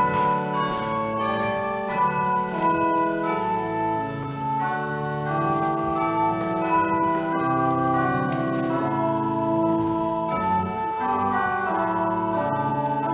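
Organ playing a slow piece of held chords, the notes changing about every second.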